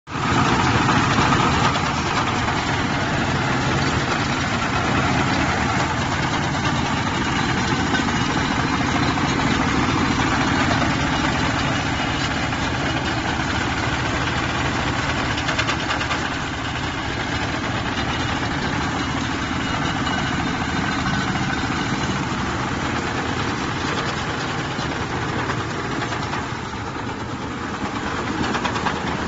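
Rice thresher running steadily, driven by its small stationary diesel engine, with the engine's chug mixed into the dense noise of the threshing drum as rice straw is fed through.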